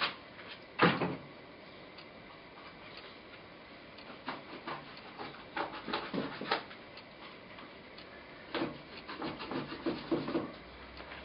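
Paintbrush scrubbing and scraping paint onto a rough, heavily textured canvas in short bursts of strokes: one stroke about a second in, then two clusters of strokes in the middle and near the end, with pauses between.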